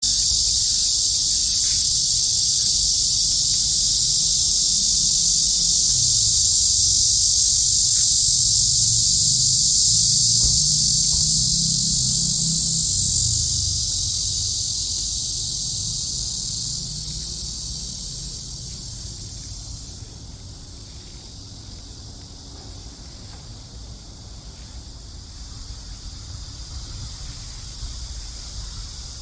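Cicada singing, a loud, steady, high-pitched buzz that fades over a few seconds about halfway through and continues more quietly. A low rumble runs underneath.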